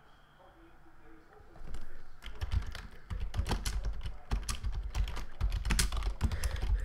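Typing on a computer keyboard: a rapid, uneven run of key clicks, many with a dull thud under them, starting about one and a half seconds in.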